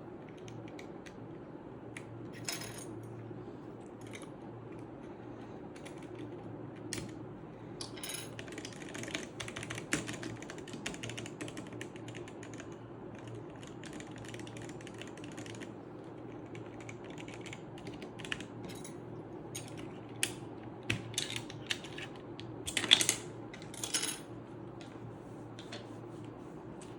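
Plastic keycaps clicking and rattling as they are handled and pressed onto the switches of a Redragon K530 Pro mechanical keyboard: irregular sharp clicks, a dense run in the middle and a few louder snaps near the end, over a steady low hum.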